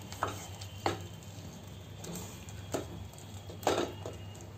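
Wooden spatula stirring chicken in gravy in a steel pot, giving a few short scrapes and knocks against the pot, over a faint low hum.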